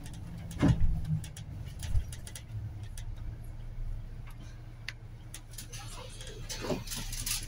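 Interior of a city bus under way: a steady low drone from the bus with scattered clicks and rattles. A brief louder sound, falling in pitch, comes about a second in and again near the end.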